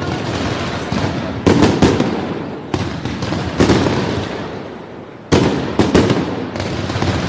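Fireworks display: loud shell bursts go off about a second apart, some in quick doubles, each trailing off in a long rumble.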